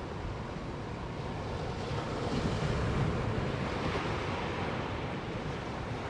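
Ocean surf: small waves breaking and washing up a sand beach, swelling about two seconds in and easing off again.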